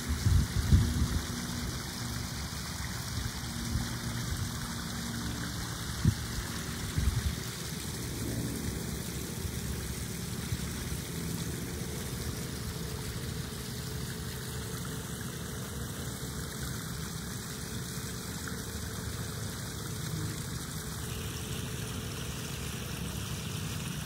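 Steady trickling and splashing of water running into a backyard koi pond, with a few low bumps just after the start and again about six seconds in.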